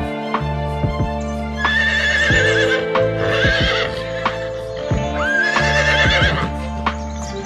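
Three whinnying calls from an equine (horse or zebra), each a high wavering call lasting about a second, over background music with sustained tones and a regular clicking beat.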